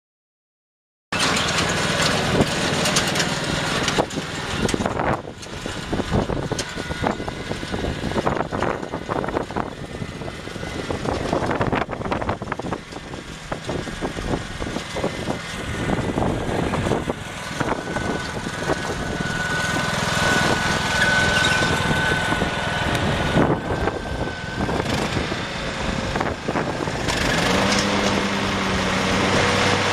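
Husqvarna YTH21K46 riding lawn mower's engine running, with scattered knocks and rattles; the engine note changes near the end.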